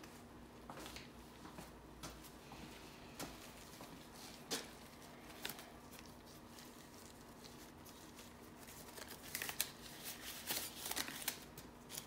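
Faint clicks and rustles of hands handling small items on a craft table, getting busier with a cluster of sharper clicks near the end.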